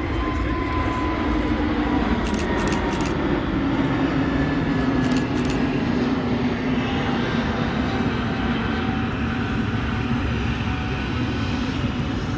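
Jet airliner engines running as an aircraft passes at the airport, a steady loud rumble and hiss with a few engine tones drifting slowly in pitch.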